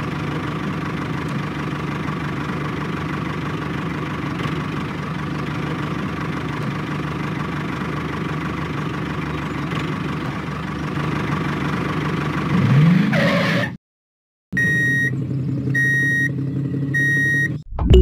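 Tractor engine running steadily at idle, rising in a brief rev about thirteen seconds in and then cutting off sharply. After a short silence come three short beeps about a second apart.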